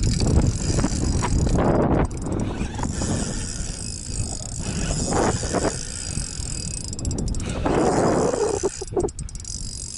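Spinning reel being cranked in bouts while a hooked taimen is played, the line under the fish's pull, over steady low background noise.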